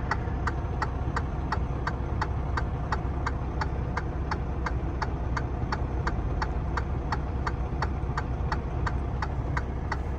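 Truck engine idling in the cab, a steady low rumble, with a regular ticking about three times a second.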